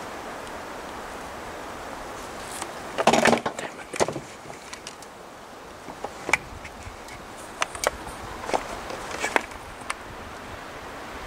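Dry leaves and twigs rustling and crackling close to the microphone as brush is pushed aside, over a steady outdoor hiss. A loud cluster of crackles comes about three seconds in, then scattered single sharp clicks.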